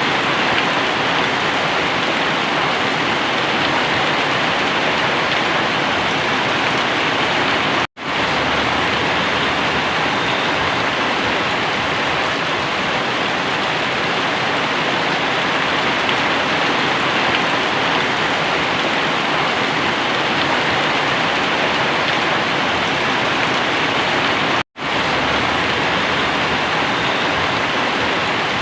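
Very heavy rain falling steadily, a dense even hiss. The sound cuts out completely for an instant twice, about eight seconds in and again near the end.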